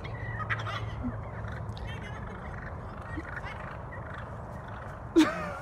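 Wild turkey toms gobbling, short rattling calls repeated several times. A sudden loud falling cry about five seconds in.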